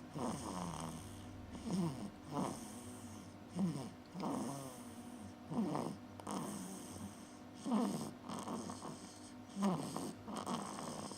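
Snoring in slow, regular breaths, roughly one breath every two seconds, each snore a short sound that falls in pitch.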